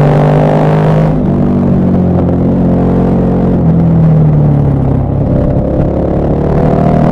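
KTM 1190 Adventure R's LC8 V-twin engine under way, revs climbing, then dropping suddenly about a second in and climbing again toward the end.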